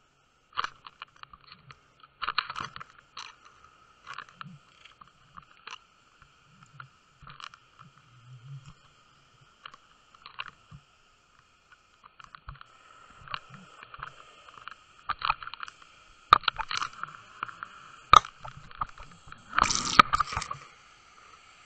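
Irregular clicks, knocks and crunchy scrapes against an underwater camera housing on a sandy bottom, growing busier in the second half, with a louder scraping burst near the end.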